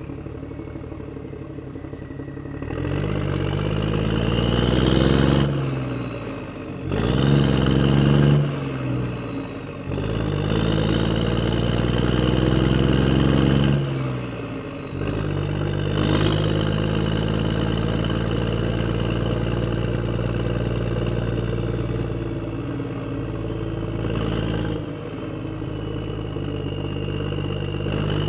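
A vehicle engine rising in pitch three times, dropping back between each rise, then running at a steady pitch.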